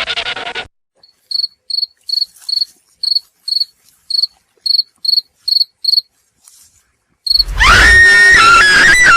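Cricket chirping sound effect: short, evenly spaced high chirps, about two a second, for roughly five seconds. A loud noisy sound cuts off just under a second in, and a loud pitched sound effect starts near the end.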